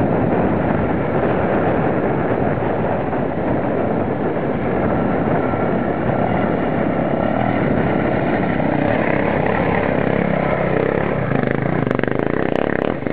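Dual-sport motorcycle engine running hard under load as it climbs a steep, rocky hill, with a few sharp knocks near the end.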